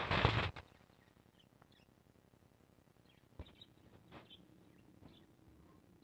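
Budgerigars giving a few faint, short, high chirps, after a brief loud burst of noise at the very start.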